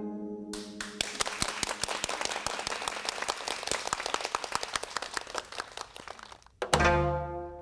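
The last plucked notes of a gayageum die away, then a studio audience applauds for about six seconds. Near the end a gayageum ensemble starts the next piece with a sudden loud plucked chord over a deep low note.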